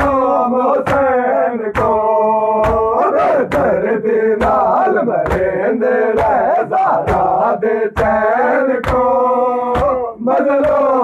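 A crowd of male mourners chanting a Muharram nauha lamenting Hussain in unison, with sharp chest-beating (matam) slaps keeping time a little more than once a second.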